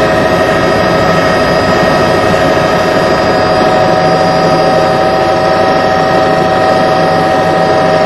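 Bell 206 JetRanger helicopter heard from inside the cabin in flight: the Allison 250 turboshaft's steady whine of several held high tones over a constant rush of rotor and airflow noise.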